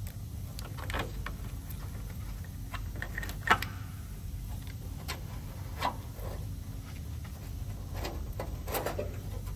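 Scattered clicks and knocks of wiring clips and a sensor bracket being unclipped and handled under a van, the sharpest knock about three and a half seconds in, over a steady low hum.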